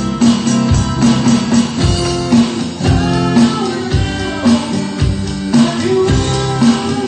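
Rock band playing a mid-tempo song: strummed guitars, bass and a drum kit keeping a steady kick-drum beat, with a singer's voice over them.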